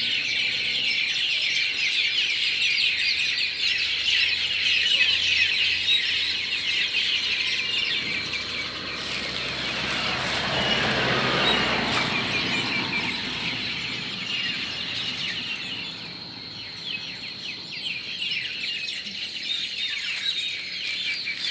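A dense evening roosting chorus of many birds chirping and calling over one another, mynas among them. A broad rushing sound swells and fades about halfway through.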